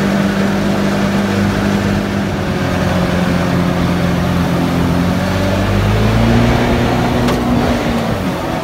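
Jet boat engine running under way, with water rushing past the hull. The engine note dips slightly about three seconds in, then rises over the last few seconds as the boat speeds up.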